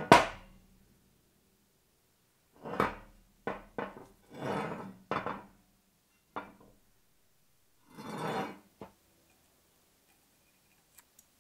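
Heavy steel bar stock and a steel channel section handled on a steel workbench: a run of separate clanks and short scrapes of metal on metal, the last a little under nine seconds in. A few faint clicks come near the end.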